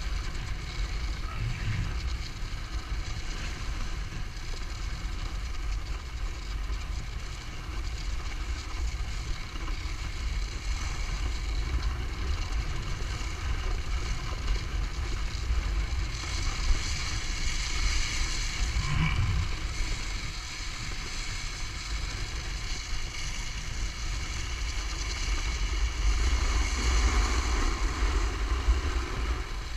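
Skis running over groomed snow with wind rushing on the microphone, and a Ski-Doo snowmobile engine running steadily as it tows a line of skiers on a rope. The noise swells about halfway through and again near the end.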